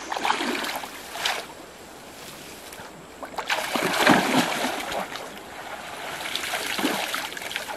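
Water splashing and sloshing around legs wading through a shallow, knee-deep stream, coming in three surges with the loudest about four seconds in.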